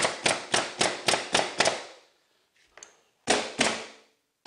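Pneumatic underlayment stapler driving staples into plywood underlayment: a quick run of about seven sharp shots, roughly four a second, then after a pause two more about three seconds in.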